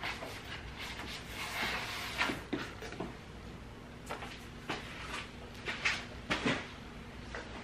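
Rustling and handling of self-adhesive foam insulation sheets being pressed onto a car trunk lid, with scattered light clicks and knocks.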